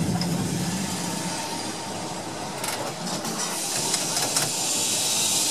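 Open-top tram running along the track, heard from on board: a steady rumble from the wheels and running gear, with a few clicks a few seconds in, and a hiss that grows near the end.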